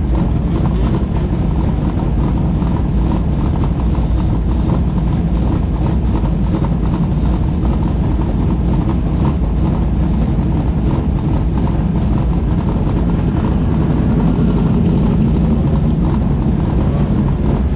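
Race car engines idling steadily while the cars sit stopped in line, a loud low rumble that gets a little louder near the end.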